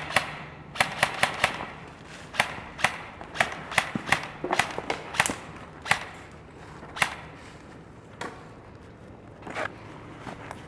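Airsoft guns firing as sharp cracks: quick strings of three or four shots and irregular single shots. They are frequent through the first seven seconds, then one more comes near the end.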